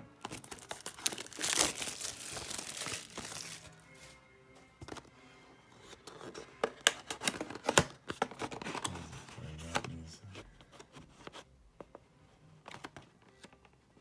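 Packaging of a sealed trading-card box being torn open and crinkled: a long rip starting about half a second in and lasting about three seconds, then a run of sharp crinkles and clicks a few seconds later.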